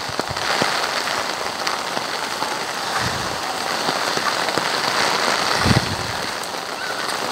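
Heavy typhoon rain falling steadily on a wet street and surroundings, an even hiss with no letup. Two dull low thumps stand out, one about three seconds in and one near six seconds.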